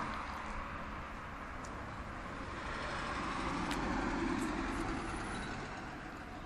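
Passing road traffic: a vehicle's noise swells to its loudest midway and fades again over a steady background hum.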